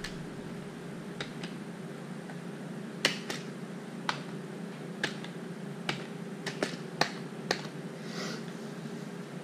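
Computer keyboard keys pressed one at a time: about a dozen sharp, slow, irregular clicks, with a steady low hum underneath.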